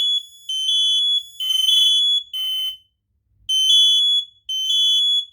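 Kidde smoke alarms sounding the three-beep temporal fire-alarm pattern. More than one alarm sounds at once and out of step: piercing beeps at two slightly different pitches overlap before a short pause near the middle, then a clean group of three beeps follows.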